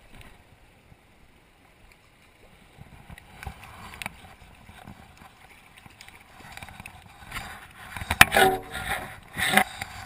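Water splashing and sloshing in a shallow river as someone wades in it. It is quiet for the first few seconds, then grows more agitated, with the loudest splashes about eight and nine and a half seconds in.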